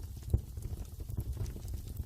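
Wood fire crackling in a fireplace: a dense run of small pops and snaps over a low rumble, with one sharper, louder pop about a third of a second in.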